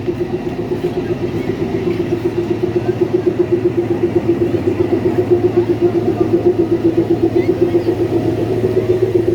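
Diesel locomotive of the narrow-gauge toy train idling with a steady, evenly pulsing throb and hum. It grows a little louder about three seconds in.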